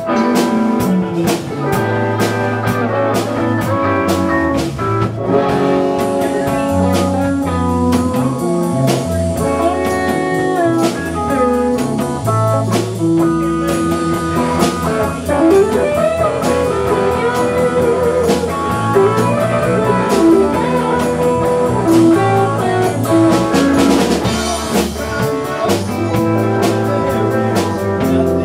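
Live band playing an instrumental passage: electric guitar notes over a drum kit and a low bass line, the guitar bending notes up and down near the middle.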